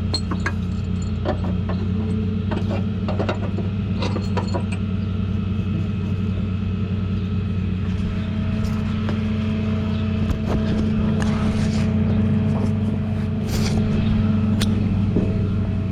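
A vehicle engine idling steadily, with sharp metallic clicks and clanks scattered through the first few seconds.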